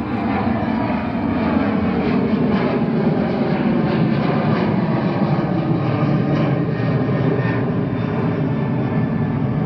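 Jet airliner engines at high power, a loud steady rush with faint whining tones in it.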